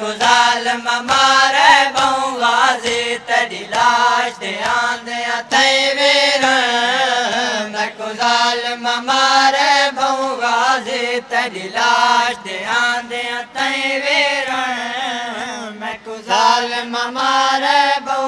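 A noha reciter chanting a mournful lament in a long melodic passage. Against it come the repeated sharp slaps of mourners beating their chests in matam, keeping time with the noha.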